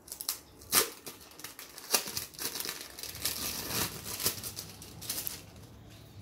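Plastic packaging of processed cheese slices crinkling and rustling as a slice is peeled off its film and drawn out of the bag. There are two sharp crackles in the first two seconds, then a dense rustle through the middle.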